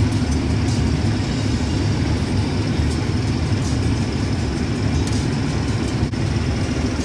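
Case IH 2388 combine running steadily while harvesting corn, heard from inside the cab: a continuous low engine-and-machinery drone with a faint steady high whine over it.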